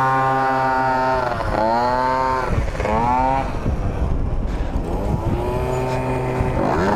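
Tuned petrol Yamaha scooter engines revving as they ride alongside, their pitch climbing and dropping sharply three times, over the rumble of wind on the microphone.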